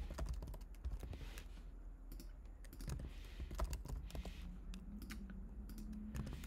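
Computer keyboard typing: a run of short, irregular key clicks as short words are typed.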